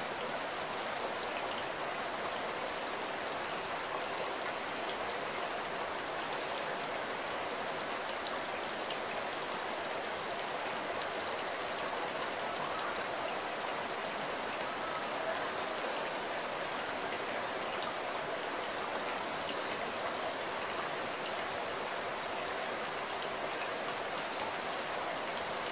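A steady, even rushing hiss with the sound of rain or running water, unchanging throughout.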